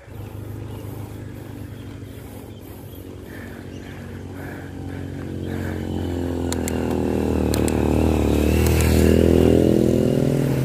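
Motorcycle engine running, growing steadily louder as it approaches and loudest near the end as it comes alongside.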